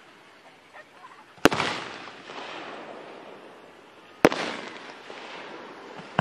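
Aerial fireworks shells bursting in the sky: two loud bangs about three seconds apart, each trailing off over about a second, and a smaller bang at the very end.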